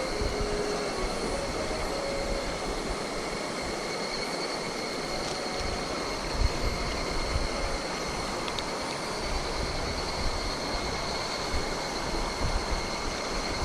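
Steady rush of mountain-stream water, with a thin, steady high-pitched whine over it.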